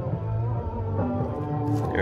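Guitar music playing from a portable speaker, with a steady bass line under changing notes.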